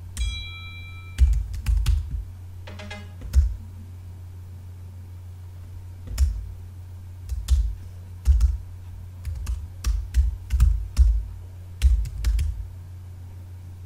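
Typing on a computer keyboard: irregular keystroke clicks in short runs, over a steady low hum. Right at the start a brief ringing electronic tone sounds for about a second.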